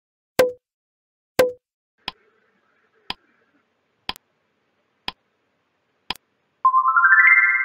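Quiz sound effects: two sharp pops about a second apart, then a countdown timer ticking once a second, five ticks. Near the end a bright chime of stepped tones climbs in pitch, signalling the answer reveal.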